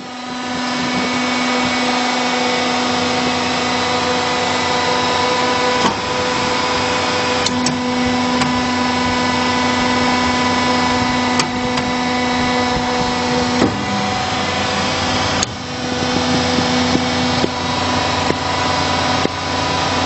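Sawdust wood block making machine running: a steady motor hum with a few sharp knocks.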